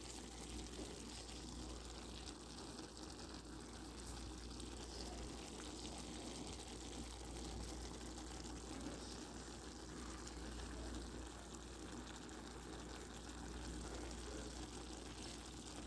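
Cabbage, green peppers and red onions cooking in a pan with a faint, steady sizzle and bubble.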